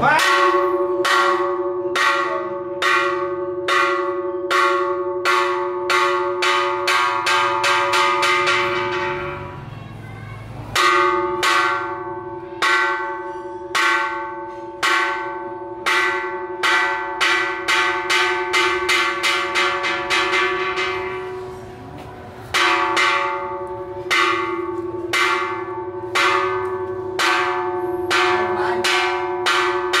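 A temple bell struck over and over in ritual rolls, each stroke ringing on into the next. The strokes come closer together as each roll goes on. Then comes a short break and a new roll: three rolls begin, about ten seconds apart.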